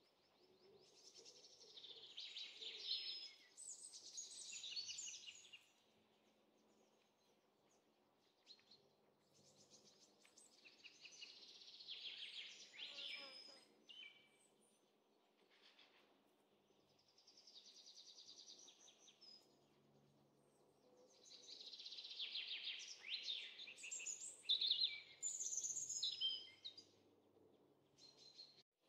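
Songbird singing in four bouts of rapid high chirps and short whistled glides, a few seconds apart.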